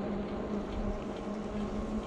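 E-bike riding along a paved path: a steady hum from the electric motor, mixed with tyre and wind noise.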